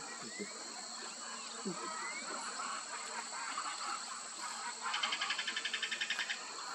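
Outdoor ambience with a few short rising bird chirps. About five seconds in comes a rapid rattle of evenly spaced pulses, about ten a second, lasting just over a second.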